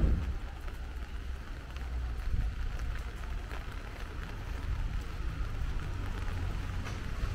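Street ambience in light rain: rain falling over a steady low rumble of traffic, with a dull thump at the very start and a smaller one about two and a half seconds in.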